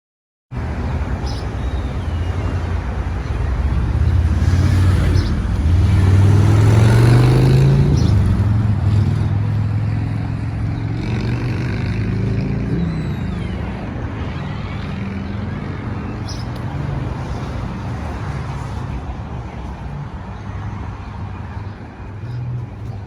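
Motor vehicle and road traffic noise, a low engine sound that swells to its loudest about seven seconds in and then slowly fades.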